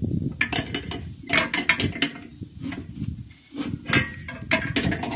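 Irregular metal clinks and taps of a brass hose fitting and a spanner against the valve of a small steel gas cylinder as a gas hose is fastened on, over low handling noise.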